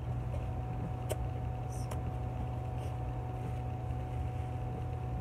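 A steady low hum with a faint steady whine above it, and a faint tap and soft paper rustles about one to two seconds in as a tissue is handled.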